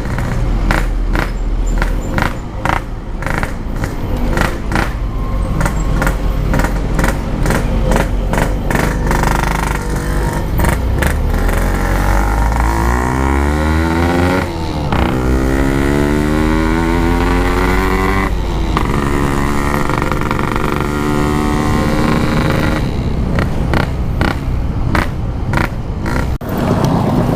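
Yamaha RX-King 135cc single-cylinder two-stroke motorcycle riding with an aftermarket packing-type exhaust. Rapid crackles break up the sound over the first several seconds, then the engine revs up through the gears, its pitch rising in several sweeps with brief breaks at the shifts.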